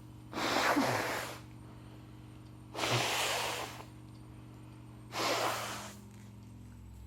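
A woman with a head cold sneezing three times in a row, each sneeze sudden and about a second long, a couple of seconds apart.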